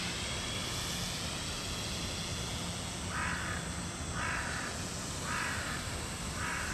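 A crow cawing four times, about a second apart, over a steady background hiss.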